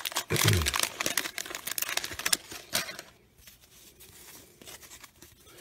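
A 1990 Bowman wax-paper card pack being torn open, the wrapper crinkling and crackling for about three seconds, then quieter rustling as the cards are slid out of it.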